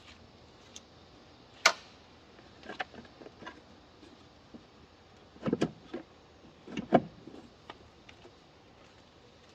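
Scattered clicks and knocks of tools and parts being handled: one sharp click a couple of seconds in, then a few lighter taps and two heavier bursts of knocking in the middle.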